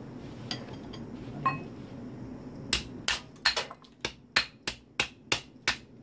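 Hammer tapping on the small metal turntable motor of a microwave to knock it apart: a couple of faint clicks, then from about halfway a run of about ten sharp strikes, roughly three a second.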